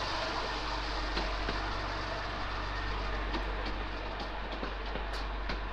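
Coaches of a 15-inch gauge miniature railway train rolling slowly past with a steady rumble and light clicks, mostly in pairs, as the wheels cross rail joints.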